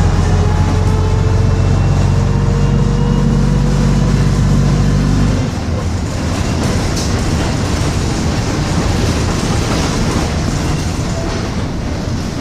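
Bristol RELL6L rear-engined bus's diesel engine pulling steadily, with a faint whine that falls slowly in pitch. About five seconds in, the engine note drops away suddenly, leaving the rumble of road noise from on board.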